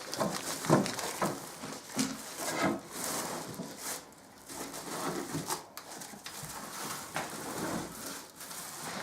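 Cardboard box and plastic packaging rustling and scraping in irregular strokes as a boxed wall-mounted electric fireplace is slid out of its packaging.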